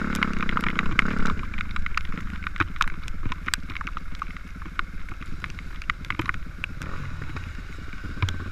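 Dirt bike engine running on a rocky, muddy trail, with a steady pitched drone for the first second or so that then drops to a low rumble. Many sharp clicks and knocks over wind noise.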